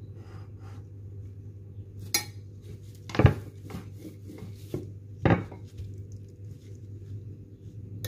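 Kitchen utensils knocking and clinking on a countertop: a metal spoon against a glass bowl, and a wooden rolling pin being handled. There are a few sharp knocks, the loudest about three and five seconds in, over a low steady hum.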